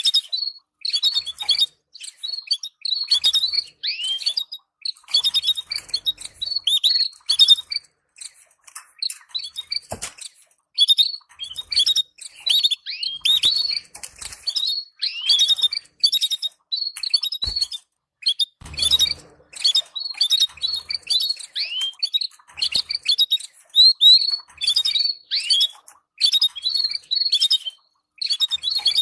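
Canaries chirping in quick runs of short, downward-sliding notes with brief pauses between runs. This is a call recording meant to stimulate breeding canary pairs. A couple of sharp clicks and a short rustle break in partway through.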